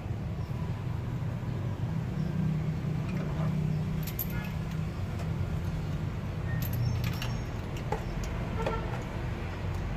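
Light metallic clinks and clicks of hand tools and metal parts being handled, with clusters about four seconds in and again around seven to nine seconds, during a spark plug swap. A steady low rumble runs underneath.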